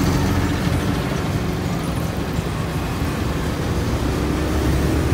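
Motor traffic heard from a moving motorbike taxi: the steady rumble of engines and road noise, with a bus running alongside.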